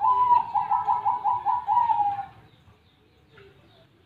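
Zebra dove (perkutut) singing one song: a held opening note that breaks into a quick run of short staccato coos, sagging slightly in pitch as it ends after about two seconds.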